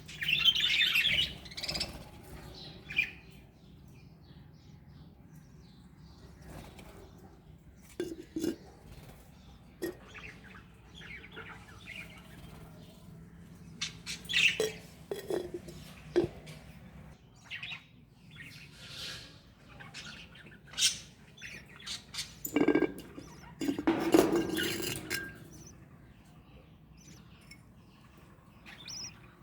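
Budgerigars chirping and squawking on and off, with louder bursts of calls near the start and about three quarters of the way through.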